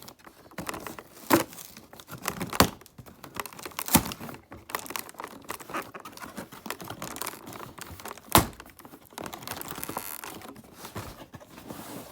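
Toy packaging being handled and pulled at by hand, with scattered sharp clicks and knocks, the loudest about eight seconds in.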